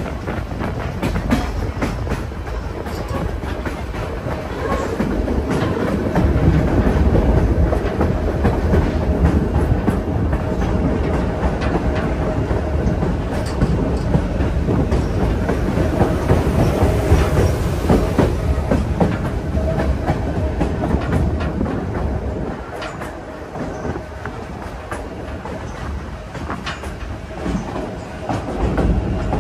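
White Pass & Yukon Route narrow-gauge passenger train running along the track, heard from aboard a car: a steady rumble of wheels on rail with repeated clickety-clack over the rail joints. It runs louder for a stretch in the middle.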